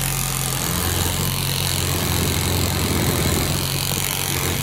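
Reciprocating saw (Sawzall) running steadily while cutting through a suspension bushing to trim it down, cutting easily. Its motor pitch shifts slightly a couple of times.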